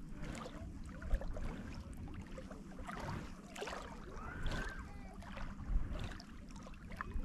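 Outdoor lake ambience: a steady low wind rumble on the microphone, light water lapping, and scattered small knocks and clicks, with a brief whistling glide about halfway through.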